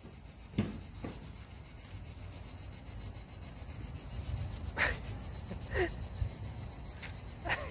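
Steady high-pitched drone of insects, with a few brief falling cries or squeals scattered through it.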